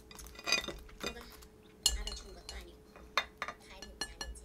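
Chopsticks clinking against a glazed ceramic bowl while picking up fried rice: a run of sharp clinks with a short ring, the loudest about two seconds in.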